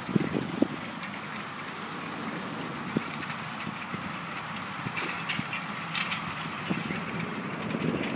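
A John Deere tractor running as it works the field, a steady engine and machinery noise with a few short knocks and rattles scattered through it.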